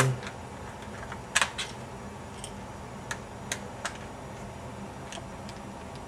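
Scattered light clicks and ticks of a screwdriver working the single screw of a Dell Latitude E6410 laptop's bottom access plate, the loudest a double click about a second and a half in.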